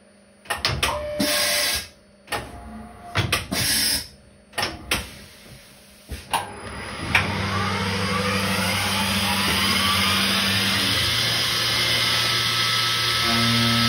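DIY four-axis CNC milling machine's end mill cutting metal on a rotary-table part. For the first seven seconds it cuts in short bursts as the cutter enters and leaves the work; after that the cut runs continuously under a steady hiss of flood coolant spraying.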